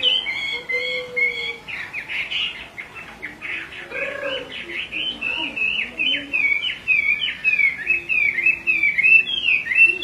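Chinese hwamei (melodious laughing thrush) singing: a fast chatter of short whistled notes. It thins out for a few seconds, then runs into a rapid unbroken string over the second half.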